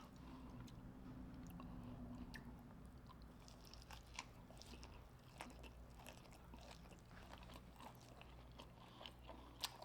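Faint chewing of a crunchy hot honey fried prawn, with a few short, sharp crunches scattered through it; the sharpest comes near the end.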